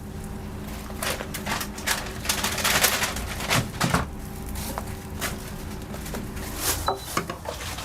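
Metal spatula clattering and scraping against a wok while stir-frying an order of thin noodles, a quick irregular run of sharp clicks and scrapes over a steady low hum.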